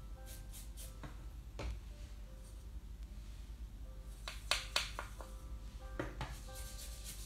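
A wide paintbrush strokes watery gouache onto paper with soft brushing sounds. About four and a half seconds in there are a few sharp clicks as the brush works paint in a plastic palette. Quiet background music plays underneath.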